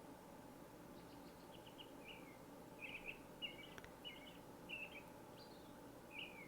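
Faint birdsong: many short chirps and twitters from small birds, one after another, over a low background hiss.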